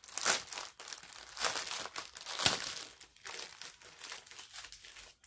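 Clear plastic packaging crinkling and rustling as it is handled, in uneven bursts that are loudest in the first three seconds and fainter afterwards.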